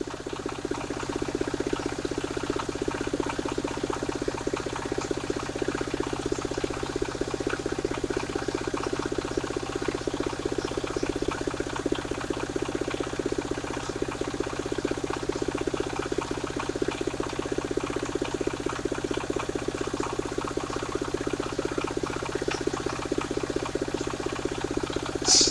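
Portable circular sawmill running steadily at an even pitch, with no change in load.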